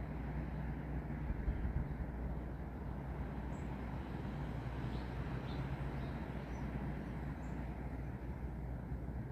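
Steady wind through trees with a deep low rumble underneath, even throughout. A few faint, short high chirps come through here and there.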